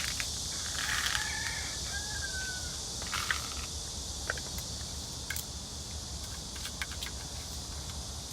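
Steady high chorus of insects such as crickets, with scattered light clicks and taps and a brief faint falling whistle about two seconds in.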